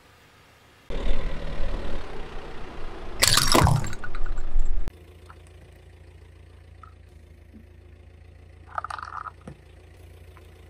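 Car tyre rolling over and crushing objects on asphalt, with the car's engine running low. There is a loud crunch about three seconds in. The sound cuts off suddenly near five seconds to a quieter steady hum, and a brief crackle comes near the end.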